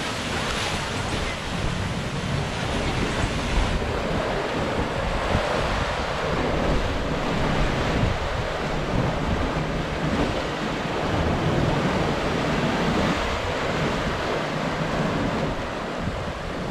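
Ocean surf washing and breaking against rocky lava cliffs in a steady wash, with wind buffeting the microphone.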